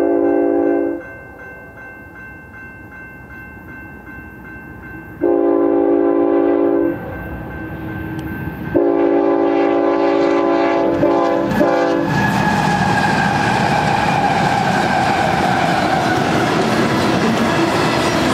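Union Pacific freight locomotives sounding a multi-chime air horn in long blasts for a grade crossing: one ending about a second in, another about five seconds in, and a longer one from about nine to twelve seconds. The lead units then pass close by, and engine rumble gives way to the steady clatter and rattle of freight cars rolling over the rails.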